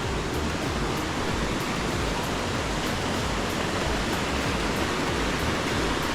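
Steady, loud rush of water, a rain-swollen stream and falls running high.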